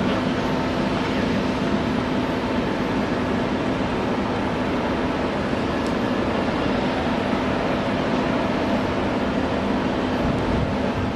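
Boeing 747-400 freighter's four turbofan engines running at taxi power: a steady jet noise with a low hum under it.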